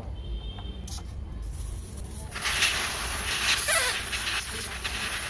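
Air hissing out of a motorcycle's front tyre through its valve as the tyre is let down to flat. The hiss starts about two seconds in and stays steady.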